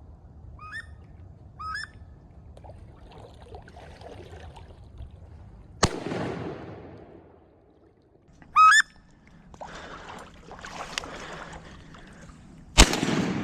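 Two shotgun shots about seven seconds apart, each trailing off in a long echo. Before and between them come several short, rising squealing calls of wood ducks.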